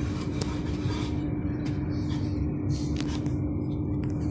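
Tram running along its line, heard from inside the car: a steady low rumble with a constant hum and a few short clicks and rattles.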